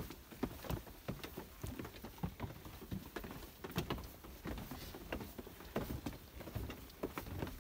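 Footsteps of people walking along a stone path and down stone steps: an irregular run of scuffs and knocks.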